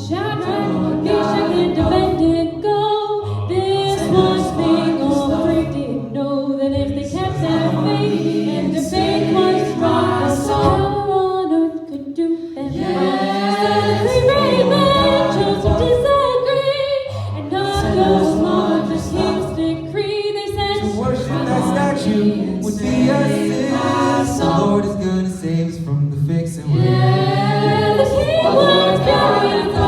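Small mixed vocal ensemble singing a cappella in close harmony, a jazzy gospel-style arrangement with a bass line carried by voices, with a brief drop about twelve seconds in.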